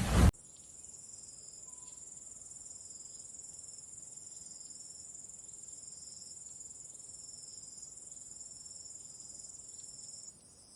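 A steady, high-pitched chorus of insects chirring, like crickets. It fades shortly before the end.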